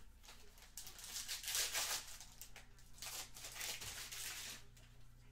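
Foil wrapper of a 2020 Panini Mosaic football card pack crinkling and tearing as it is ripped open and the cards are slid out, in two bursts of rustle.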